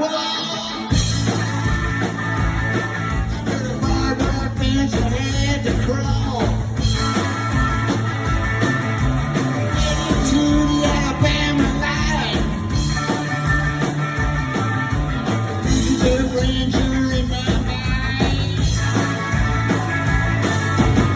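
Live rock band playing, with electric guitar over bass and drums; the full band comes in about a second in.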